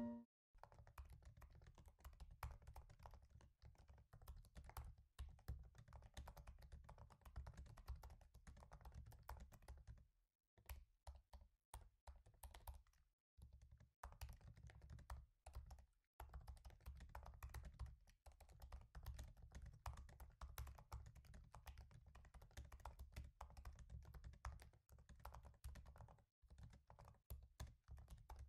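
Faint typing on a laptop keyboard: a quick, continuous run of key clicks that breaks off briefly a few times.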